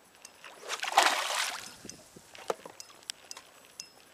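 A brief splash of water against the side of a small boat's hull, about a second in, followed by a few small clicks and knocks.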